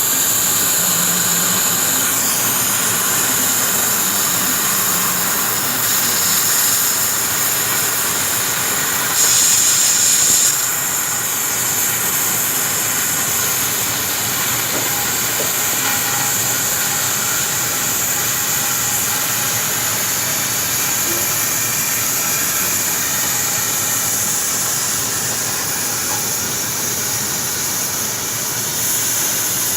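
Magnetic pipe-cutting machine cutting a high-pressure pipe, giving a loud, steady hiss, briefly louder about nine seconds in.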